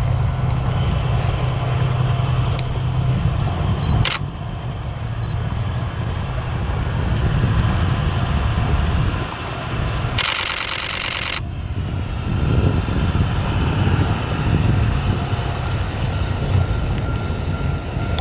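Diesel-electric locomotive (the Seven Stars' DF200) running with a deep rumble and a low engine tone. There is a sharp click about four seconds in, and a loud hiss lasting just over a second near the middle.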